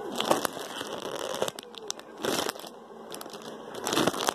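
Clear plastic bags holding squishy toys crinkling and crackling as they are handled, in three louder bursts: about a quarter second in, at about two seconds, and near the end.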